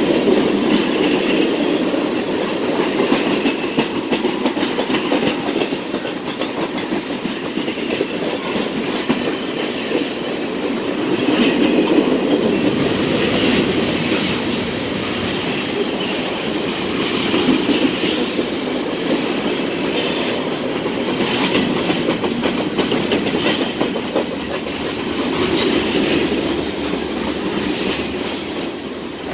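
Freight cars of a mixed freight train rolling past close by: a steady rumble of steel wheels on rail, with clickety-clack from the wheels over rail joints. The loudness swells and eases every few seconds as the cars go by.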